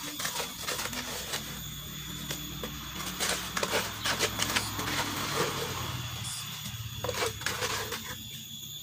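Cement mortar being tipped and scraped out of a bucket onto a rubble-stone foundation wall: a run of gritty scraping and clattering clicks, busiest in the middle.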